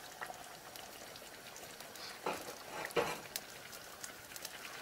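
Pot of okra and tomato stew simmering on a gas burner with a faint, even crackle of bubbling. Two short scrapes of a spoon against the dishes come about two and three seconds in, as beef cubes are pushed into the pot.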